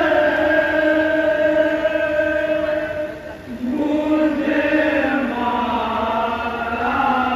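A noha, a Shia mourning lament, chanted by men in long held notes. There is a short break about three and a half seconds in before the next line begins.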